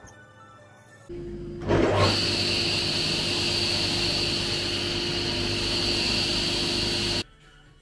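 An electric power tool's motor starts about a second in, gets much louder about two seconds in, runs steadily with a hum and a high hiss, and cuts off abruptly near the end.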